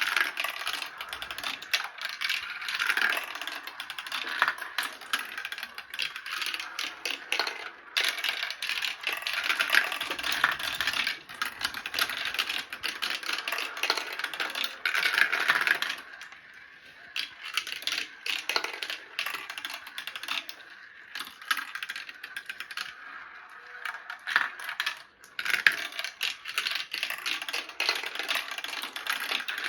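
Marbles rolling and clacking down a marble run: a steady, dense clatter of small clicks and knocks, easing briefly twice.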